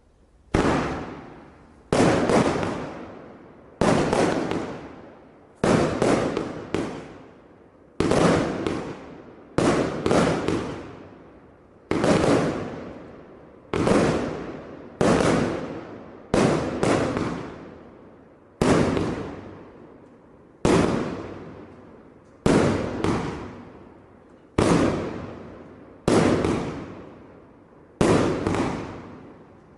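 A 151-shot fireworks battery (cake) firing, with a sharp bang every second and a half to two seconds, some coming in quick pairs, each dying away over about a second.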